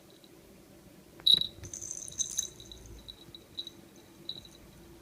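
Kitten playing with a toy ball: a series of light clicks and short, high tinkling pips as the ball is knocked about, with one louder knock just over a second in.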